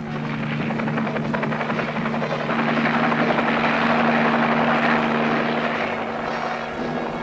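Helicopter passing, its rotor and engine noise swelling to a peak midway and then fading, over a steady low hum.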